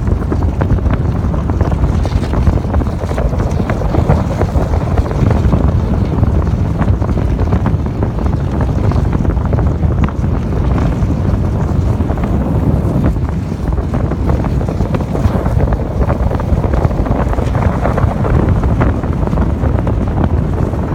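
Loud, steady wind buffeting a microphone held out of a moving car's window, with the car running on a snowy road underneath it.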